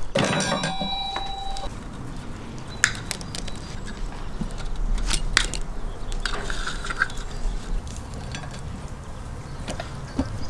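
Long flat steel skewers clank together at the start and ring briefly, then a few light knocks and handling noises follow. About six seconds in comes a short scraping stretch, a knife being drawn through a small hand-held pull-through sharpener.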